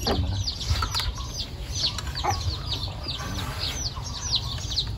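Birds chirping busily, many short, high notes that each slide downward, repeating several times a second over a low rumble, with a few light clicks.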